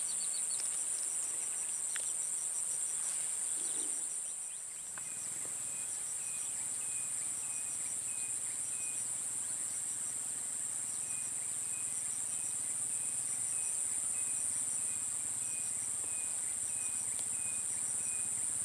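Steady, high-pitched chorus of insects ringing without pause, with a lower chirp repeating about twice a second through most of it. The chorus dips briefly about four seconds in.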